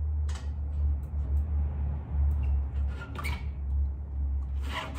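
A mountain bike being loaded onto a 1UP hitch-rack bike tray: short rattles and clicks of the bike and the metal tray, three times, over a steady low rumble.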